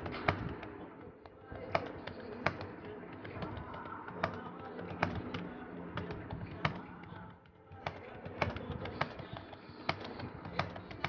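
Computer keyboard being typed on: sharp single key clicks at an uneven pace, over faint background voices and music.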